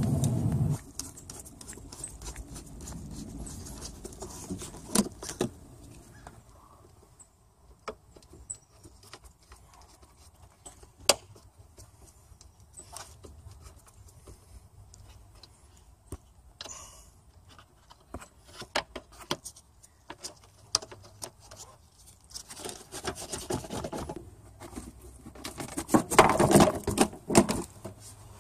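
Hand-tool work on a 2005 Toyota Camry's windshield cowl: scattered sharp clicks, knocks and scrapes of metal tools, plastic trim and the rubber cowl seal being worked loose. It gets busier, with clinking and rubbing, near the end.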